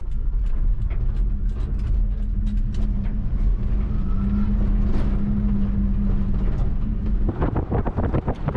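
Electric-converted 1995 Subaru Sambar kei truck driving, heard from inside the cab: low road rumble with a steady hum from the brushed DC motor and manual gearbox, and no engine running. About seven seconds in, wind buffeting on the microphone takes over.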